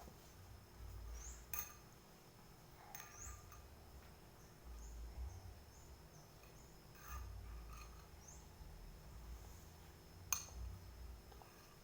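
Eating from a bowl: a spoon or fork clinks against the dish four or five times, the sharpest click about ten seconds in. A bird chirps in short rising calls every second or two in the background.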